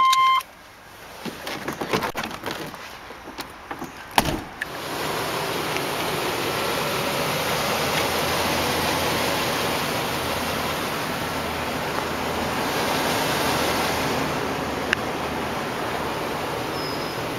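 The Chevrolet Express van's engine idling steadily, heard from beside the van. It is preceded by a few light handling sounds and one sharp knock about four seconds in.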